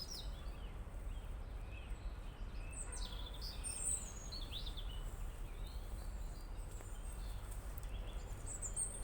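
Songbirds chirping and singing in short, high, scattered phrases, some overlapping, over a steady low rumble.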